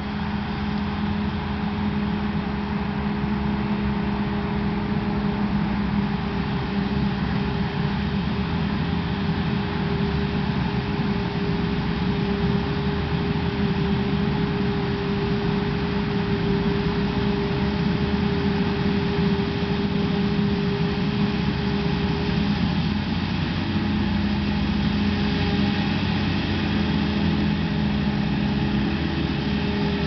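Claas Jaguar 890 self-propelled forage harvester chopping maize and blowing it into a trailer pulled alongside by a New Holland tractor: a steady machinery drone with a constant hum.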